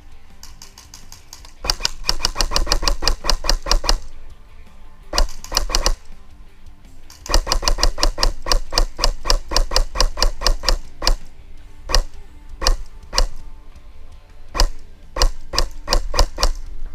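Airsoft electric gun firing rapid full-auto bursts of about a dozen shots a second, each shot a sharp click. After about eleven seconds it switches to single shots and short strings.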